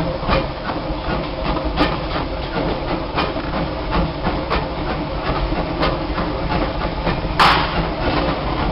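Disneyland Railroad train rolling along the track with a steady rumble, a sharp click about every second and a half as the wheels pass rail joints. A short, loud burst of hiss comes near the end.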